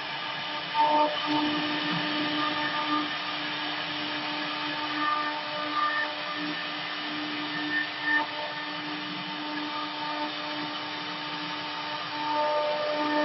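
The two spindle motors of a twin-head CNC router running steadily, a constant whine over the hiss of the bits carving relief into wood panels, with a few brief louder moments.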